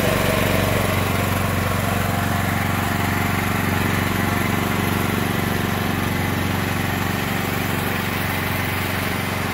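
Champion 8750-watt dual-fuel open-frame inverter generator running steadily, warming up just after starting.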